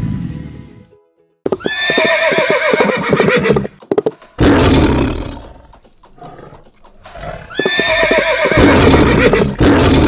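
A horse whinny, heard twice about six seconds apart, each a high wavering call that falls away over about two seconds. Between them comes a short, rough, breathy blast. Background music fades out in the first second.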